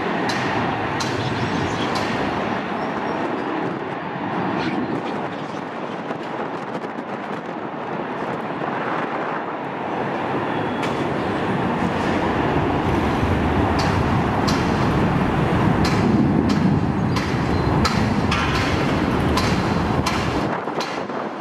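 Jet engines of a twin-engine Airbus A330 at takeoff thrust during the takeoff roll: a steady roar that grows louder past the middle of the run and eases near the end, with wind rumbling on the microphone and scattered clicks.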